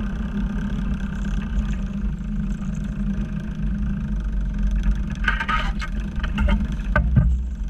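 Steady low rumble with a constant hum, like a running motor, with a few sharp clicks and knocks near the end.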